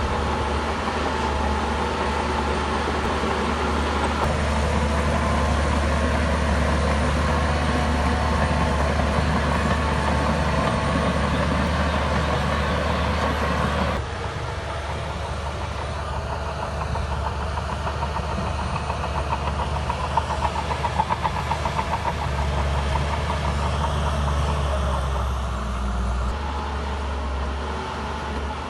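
Shantui bulldozer's diesel engine running steadily under work. About halfway through the sound drops abruptly to a quieter level, and a quick rhythmic rattle follows a little later.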